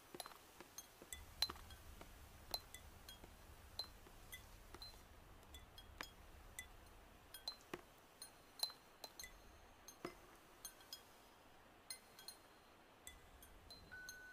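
Water dripping from a leaking roof into a plate, a cup and a bowl: faint, irregular plinks, each drop ringing briefly at its own pitch.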